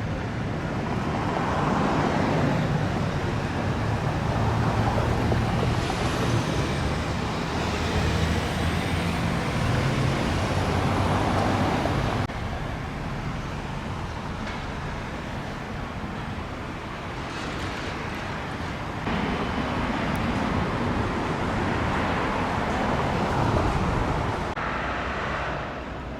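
Road traffic: cars and trucks passing with engine and tyre noise, quieter for a stretch in the middle.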